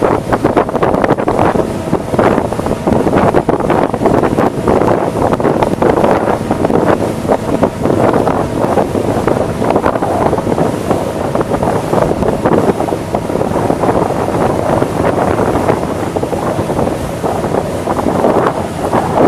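Wind buffeting the microphone on a moving open motorboat, a loud steady rushing with the boat's running noise beneath it.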